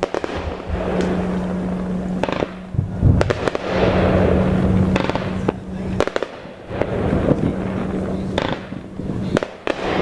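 Consumer fireworks going off: several sharp bangs a second or two apart, with stretches of dense crackling between them and a steady low hum underneath.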